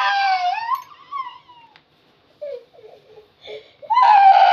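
Toddler crying: a long loud wail that breaks off about a second and a half in, a few short sobbing whimpers, then another loud wail starting near the end.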